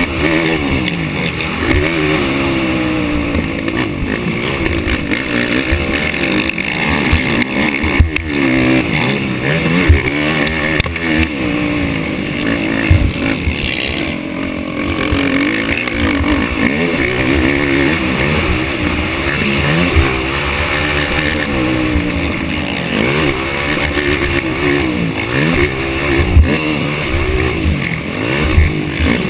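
Racing ATV engine revving hard and falling off again and again, its pitch rising and dropping every second or two, with short low thumps throughout.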